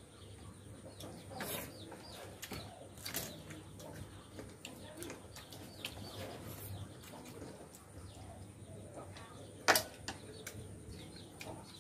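Quiet eating sounds: chopsticks picking at a plate of boiled fish and tapping small bowls, with scattered light clicks and one sharp clink near the end.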